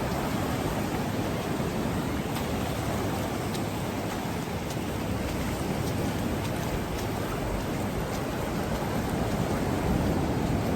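Ocean surf washing onto the beach: a steady rushing hiss that swells slightly near the end.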